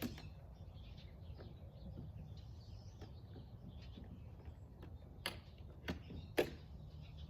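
A few sharp plastic clicks and knocks from the modular kayak's hull sections and fittings being handled during assembly, the loudest three coming about half a second apart near the end, over a low steady background.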